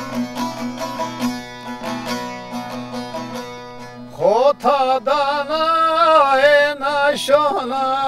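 A bağlama (long-necked saz) strummed in a quick, steady rhythm. About four seconds in, a man's voice comes in, sliding up into long held, wavering sung notes while the saz carries on beneath.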